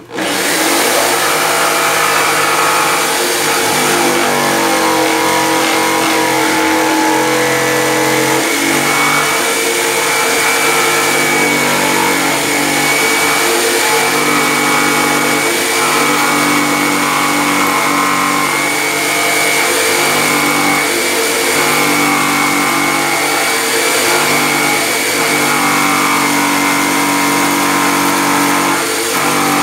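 Corded jigsaw starting up and cutting a handle opening through the top panel of a speaker box. The motor runs loud and steady, its pitch dipping and shifting a little as the blade bites into the panel.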